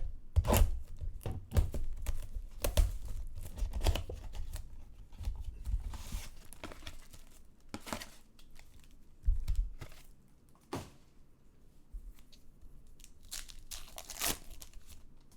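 Trading card packaging torn open and crinkled by hand: sharp tearing and crackling, busiest in the first ten seconds, then a few scattered crinkles.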